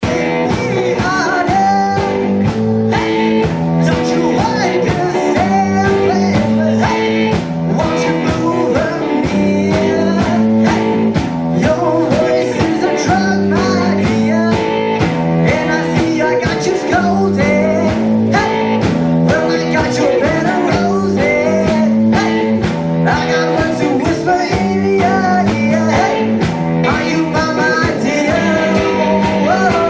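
Live rock band playing with electric guitar, bass and drums, a steady beat going all through.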